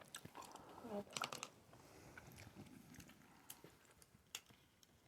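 Faint chewing of sushi with small wet mouth clicks, and a brief soft sound about a second in.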